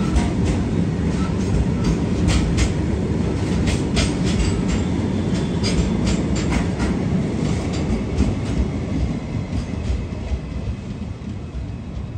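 Freight train of covered boxcars rolling past close by: a steady low rumble of steel wheels on rail with irregular clanks and clicks, easing off over the last few seconds.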